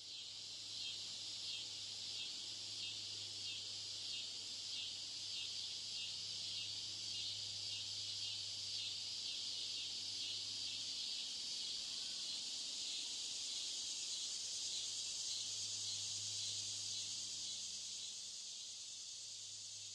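A steady, high-pitched insect chorus with a regular pulse of a few beats a second, dropping slightly in level near the end.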